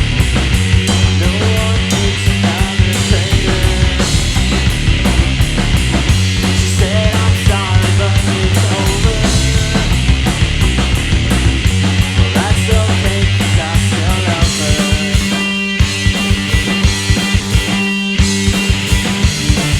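Live three-piece rock band playing loud: electric guitar, bass guitar and drum kit in an instrumental passage without vocals. The bass drops out briefly twice near the end.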